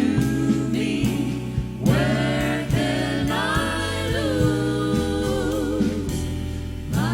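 A vocal group singing a jazz number in close harmony, several voices moving together over a walking bass line.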